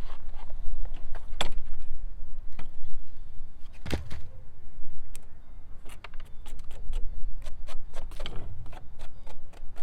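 Irregular knocks, clicks and rattles of the shed's wooden door and hardware being handled, the loudest knock about four seconds in and a quick run of clicks around six to seven seconds, over a steady low rumble.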